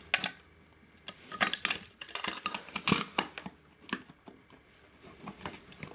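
Irregular small metallic clicks and clinks of a metal electronics chassis and tools being handled, most of them in the middle couple of seconds.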